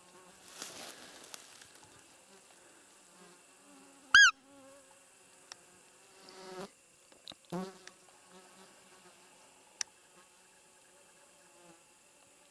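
Roe deer squeeze call (Buttolo-type) giving one short, loud, high squeak with a quick bend in pitch about four seconds in, the hunter's lure for roe deer. Two softer, lower squeaks follow a few seconds later. Insects hum steadily throughout, with a brief rustle of grass near the start.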